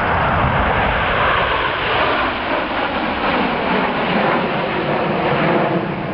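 Red Arrows' BAE Hawk T1 jets flying overhead in formation, a loud, steady jet roar.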